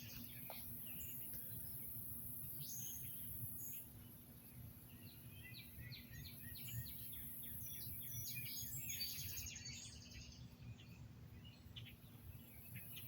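Faint outdoor ambience: small birds chirping on and off, most busily in the middle, over a low steady rumble.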